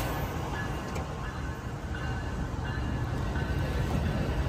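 Bilevel Amtrak Capitol Corridor passenger cars rolling past as the train arrives at the station, a steady low rumble of wheels on the rails.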